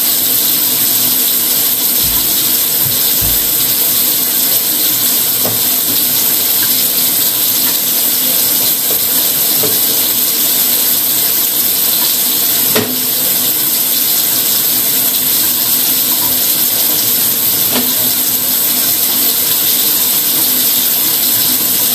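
Steady loud hiss with a faint low hum underneath, and one sharp click about 13 seconds in.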